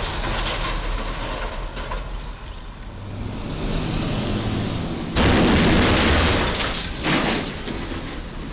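Light traffic noise, then about five seconds in a sudden loud crash as the insulated box body of a refrigerated box truck strikes the crash beam and bridge, rumbling for over a second. A second, smaller crash follows about two seconds later.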